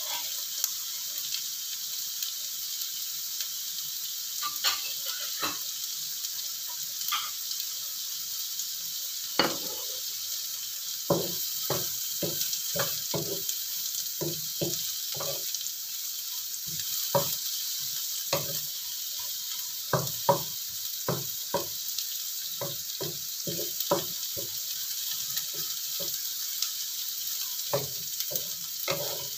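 Oil sizzling steadily in a wok as tempe cubes, eggplant, anchovies and spices stir-fry. From about ten seconds in, a wooden spatula stirs and scrapes against the wok in quick, repeated strokes, with a few scattered knocks before that.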